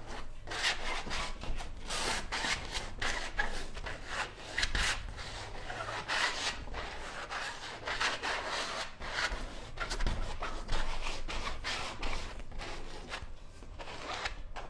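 A rubber scraper dragged over a stretched canvas, spreading paint in repeated scraping strokes, one after another.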